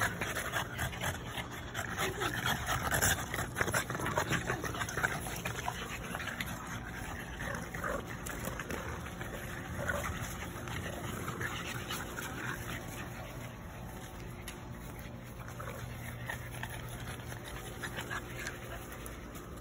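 French bulldogs making small dog noises as they jostle and play-wrestle, a string of short scattered sounds, busiest in the first few seconds.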